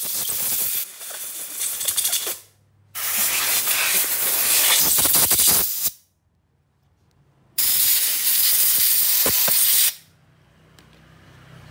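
Compressed-air blow gun blasting at a small two-stroke engine's ignition coil lead to blow water off it. Three long, loud hisses, each two to three seconds long, with short breaks between them.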